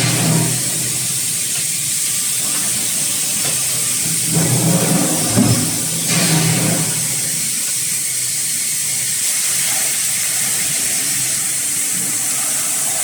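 Hot-forging line machinery: a steady hiss with a low machine hum that swells three times, and a short knock about five seconds in.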